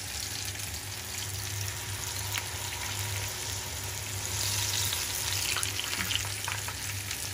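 Batter-coated okra tempura deep-frying in a pan of hot oil: a steady sizzle with scattered light crackles, growing a little louder about halfway through.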